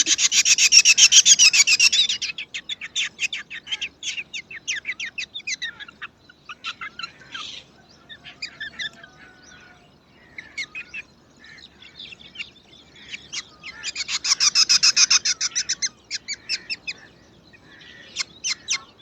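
Black drongo nestlings chirping hungrily: fast runs of short, high-pitched chirps, loudest in a dense burst at the start and again about fourteen seconds in, with scattered calls in between.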